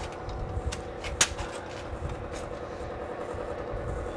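A steady machine hum with low wind rumble, topped by small ticks and one sharp metallic click about a second in as the tyre valve-stem tool and pressure gauge are handled.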